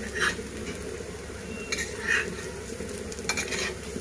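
Chicken kebab patties frying in shallow oil on an iron tawa, with a steady low sizzle, and a metal spatula scraping across the pan three times as the patties are turned.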